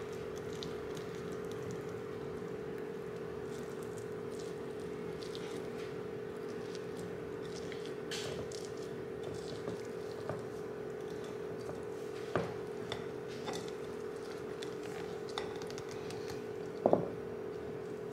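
Silicone spatula scraping and squishing around the inside of a glass baking bowl to loosen a baked bread, with scattered light taps over a steady hum. About 17 seconds in comes a quick double knock with a short ring, as the glass bowl is bumped while the loaf is turned out.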